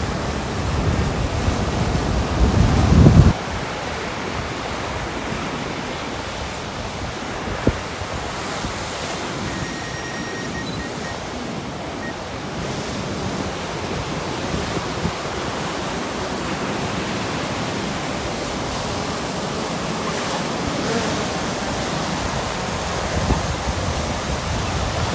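Wind and steady surf on the shore. Gusty wind buffets the microphone with a low rumble for the first three seconds, which cuts off suddenly, then a steady wash of surf and wind; a single short click about eight seconds in.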